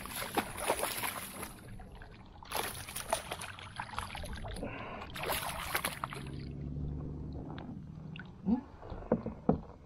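Water splashing and sloshing around a kayak as a hooked fish is fought to the boat, in several noisy bursts. A steady low hum follows for about two seconds past the middle, and a few sharp clicks come near the end.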